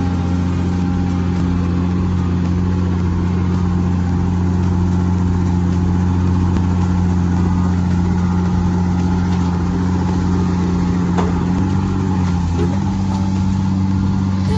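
A heavy machine's engine running steadily with a deep, even drone, shifting slightly in pitch about twelve seconds in.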